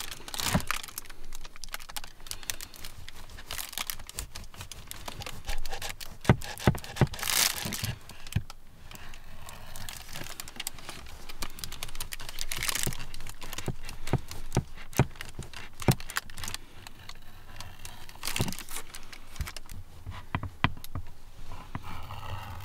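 A serrated bread knife sawing through a loaf of bread, with the crinkle of the plastic bag around the loaf. It comes in several separate bouts, with sharp clicks in between.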